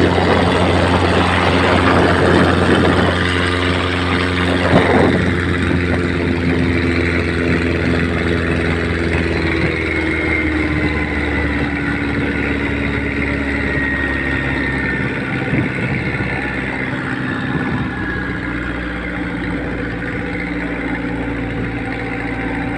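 Nissan TD27 four-cylinder diesel engine running steadily at speed, driving a wooden river boat, with water rushing and splashing along the hull. The spray noise is strongest in the first few seconds, and the engine note sags slightly about ten seconds in.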